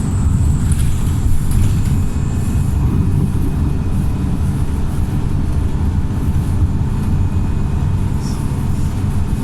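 Wright StreetLite single-deck bus's diesel engine running steadily, a continuous low drone; the bus has been remapped, which gives it its thrashy engine sound.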